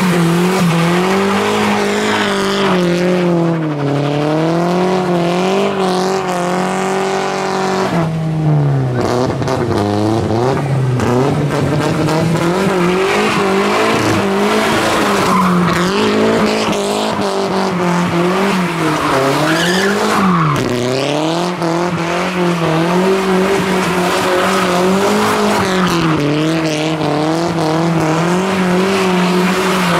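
Audi A4 estate doing a burnout: the engine is held at high revs, its pitch wavering up and down as the throttle is worked and dipping briefly about eight seconds in. Under it is the hiss and squeal of tyres spinning on the tarmac.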